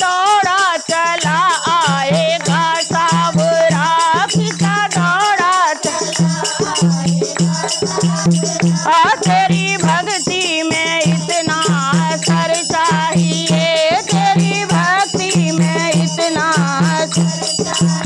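Women singing a Hindi devotional bhajan in a wavering, ornamented melody, accompanied by a dholak drum beaten in a steady rhythm and hand-held rattles shaken along.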